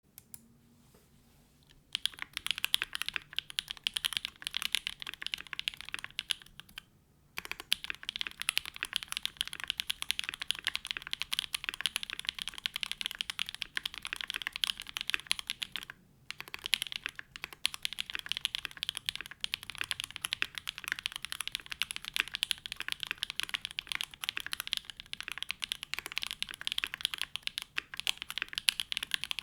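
Typing on a Neo65 mechanical keyboard with hand-lubed SWK Catmint switches, a polycarbonate plate on an o-ring mount with plate and case foam, and GMK ABS keycaps: a dense, continuous run of keystroke clacks. It starts about two seconds in, stops briefly about a quarter of the way through, and pauses once more for a moment near the middle.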